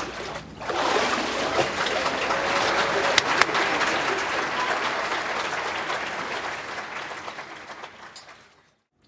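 Church congregation applauding a just-completed baptism. The clapping swells in about a second in and fades away near the end.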